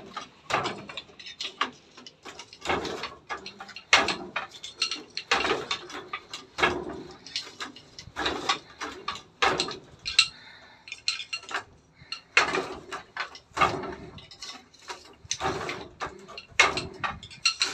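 Wooden treadle handloom clacking as cloth is woven: the beater knocks against the weave about every second or so, with lighter wooden clicks of the harness frames and shuttle between.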